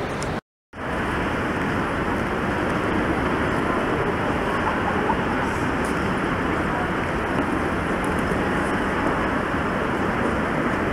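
Steady hubbub of a busy airport terminal hall: a dense wash of crowd noise and people walking through. It drops out to silence for a moment about half a second in, then carries on evenly.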